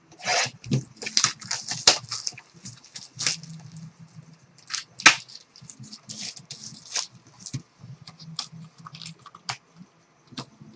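A trading-card pack being torn open and its cards handled: crinkling wrapper and rustling, flicking cards, with one louder click about five seconds in.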